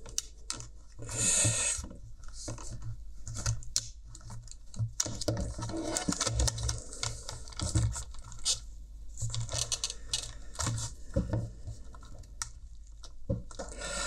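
Irregular plastic clicks and scratches as a spudger and fingers pry a clip-on plastic hinge cover off a pair of Bluetooth headphones, with a short scrape about a second in.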